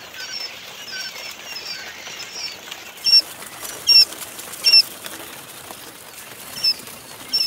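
Day-old Japanese quail chicks peeping. Many soft, overlapping high peeps come first, then from about three seconds in a handful of louder, separate peeps.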